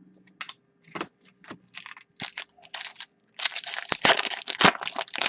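Trading cards and their packaging being handled: scattered clicks and snaps, then a longer stretch of crinkling and crackling near the end.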